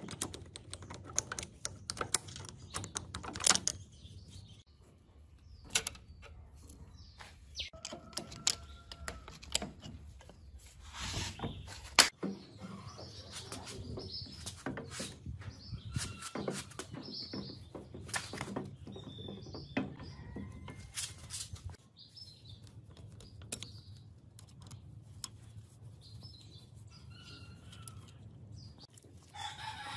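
Scattered sharp metallic clicks, taps and knocks from parts of an old Makino milling machine being dismantled by hand: table, lead screw and brass nut, worked with a hex key. The loudest knock comes about twelve seconds in, and birds chirp in the background.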